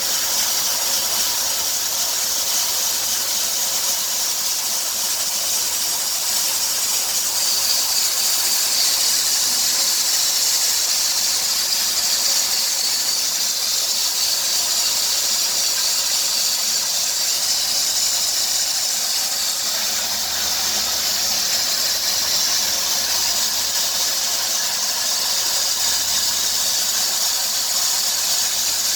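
The running 2003 Dodge Grand Caravan 3.3-litre V6 gives off a steady, high-pitched hissing squeal from its accessory drive. The noise goes quiet when sprayed with water, and the owner suspects the serpentine drive belt.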